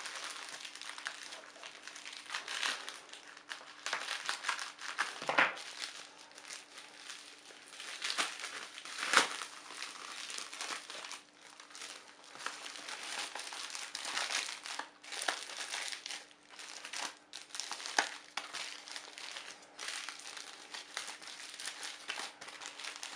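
Packaging being handled and opened, crinkling and crackling continuously with many small clicks and a few sharper snaps.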